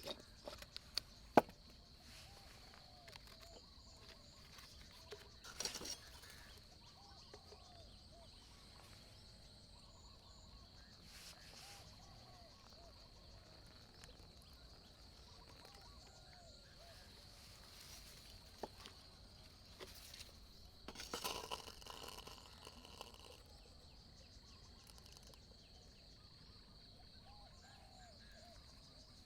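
Quiet rural outdoor ambience: a steady high-pitched insect drone, with soft short calls repeating every few seconds underneath. A few sharp clicks come near the start, and brief rustling bursts come about six seconds in and again just past twenty seconds.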